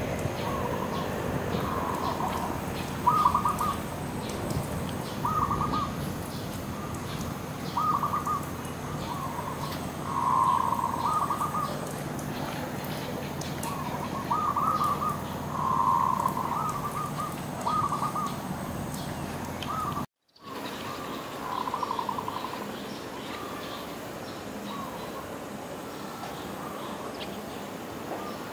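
Dove cooing: short phrases of a few pulsed coos, repeated every second or two, with faint high chirping behind. The sound cuts out completely for a moment about twenty seconds in, and the cooing then comes back more sparsely.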